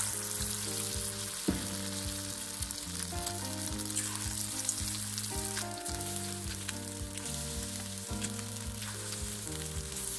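Batter-coated fish pieces deep-frying in hot oil in a steel kadai: a steady, loud sizzle, with one sharp tap about a second and a half in. Background music with held notes plays underneath.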